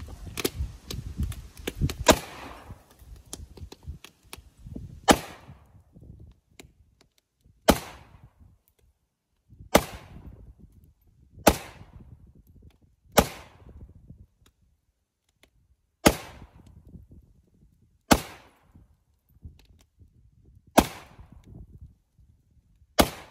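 Rifle fired in slow single shots, about ten sharp reports two to three seconds apart, each followed by a short echo dying away.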